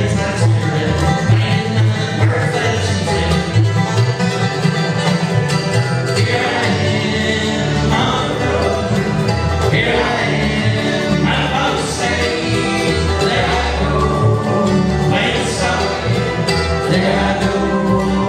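Bluegrass band playing live: acoustic guitar, five-string banjo, mandolin and upright bass together at a steady, even loudness.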